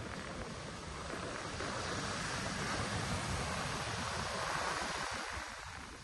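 Ocean surf washing in, growing louder through the middle and easing off near the end, with wind noise on the microphone.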